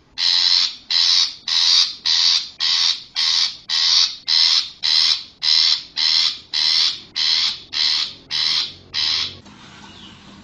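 Long-tailed shrike (cendet) giving a rapid run of about sixteen harsh, rasping calls, about two a second, which stop about nine seconds in.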